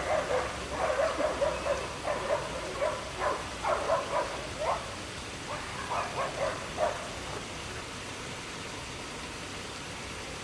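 Steady rush of a waterfall, with an animal's quick run of short, high calls over it, several a second, that stops about seven seconds in.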